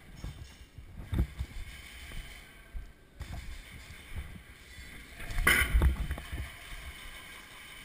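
Footsteps and gear handling as an airsoft player moves slowly forward: low thuds and scuffs, with one louder scraping clatter about five and a half seconds in.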